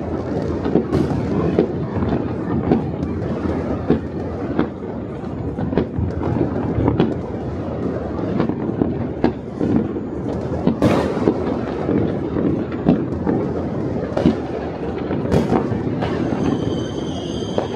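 Distant fireworks and firecrackers going off without pause across the city: a dense crackle of pops and bangs over a continuous low rumble, with sharper, louder bangs about 11 and 15 seconds in. Near the end a steady high whistle joins.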